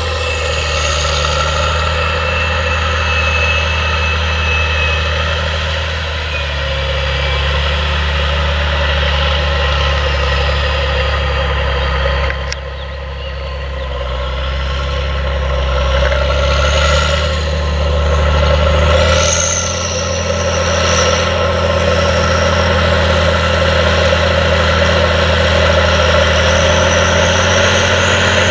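Challenger MT865C rubber-tracked tractor's Caterpillar C18 diesel engine running steadily under heavy load while pulling a reversible plough, a constant low drone. It drops briefly about halfway through, then grows louder through the second half.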